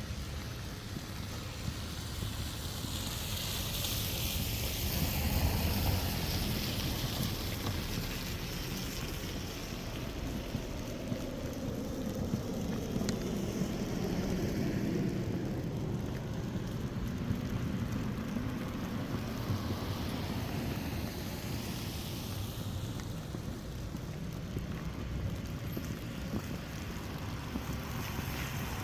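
Cars passing one after another on a snowy street, the tyre noise swelling and fading several times over a low rumble.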